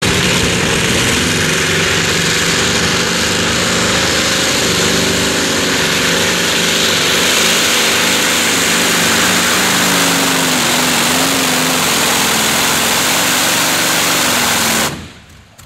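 Modified pulling tractor's big engine running hard under load during a pull: a loud, dense, steady engine noise. It cuts off suddenly near the end.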